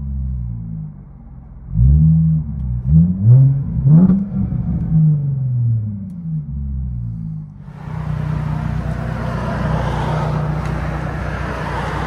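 2017 Jaguar F-Pace's supercharged 3.0-litre V6 exhaust through Dynomax Race Bullets, revved in a quick series of four sharp blips about two seconds in, each rising and falling back, then settling. From about eight seconds in it runs at a steady idle.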